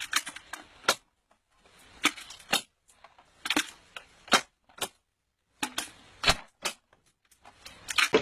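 Hand-lever nut cracker splitting walnut shells one after another: a string of sharp cracks, roughly one every half second to a second, with short pauses between nuts.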